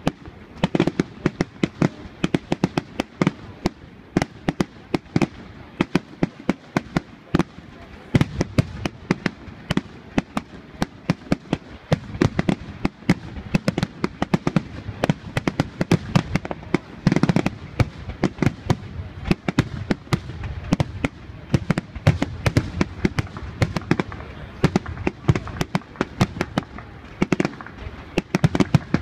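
Fireworks display: aerial shells bursting overhead in a rapid, unbroken run of bangs and crackles, several reports a second.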